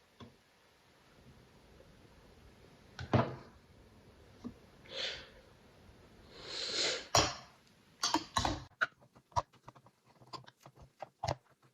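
A spoon stirring and scraping a thick mix of oats and yogurt in a bowl, with scattered clicks and knocks that come thickest in the last few seconds. A couple of short breathy hisses come between them.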